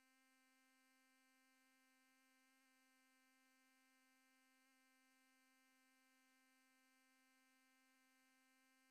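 Near silence with a faint, steady electrical hum at one unchanging pitch.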